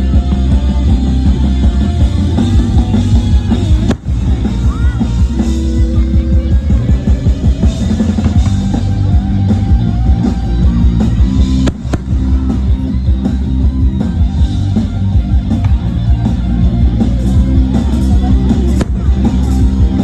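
Loud rock music with a drum kit and strong bass, playing without a break.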